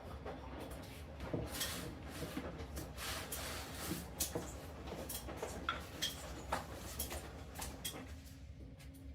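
Light knocks, clicks and rustling of household objects being handled, with a low steady hum underneath.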